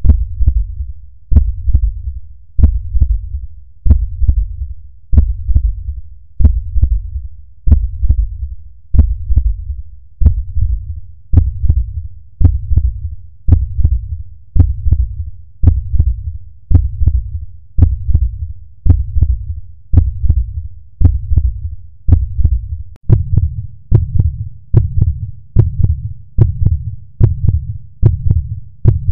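Heartbeat sound effect: slow, deep thumps, about one every 1.2 seconds, quickening a little in the last few seconds.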